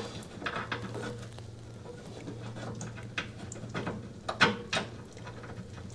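Scattered small metallic clicks and taps as hands fiddle with fasteners on the brake assembly under a Speed Queen washer's transmission, over a steady low hum.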